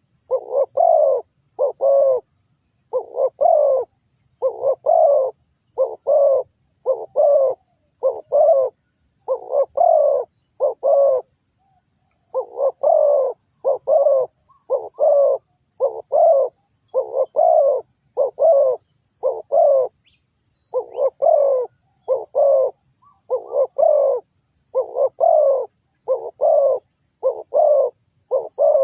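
Spotted dove cooing over and over in short phrases of two or three notes, with one brief pause about twelve seconds in.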